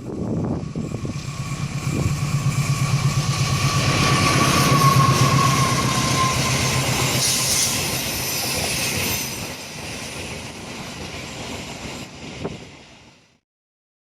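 A train passing: a low steady drone with a fast pulsing beat and a high tone that slides slightly down over the first few seconds, fading out near the end.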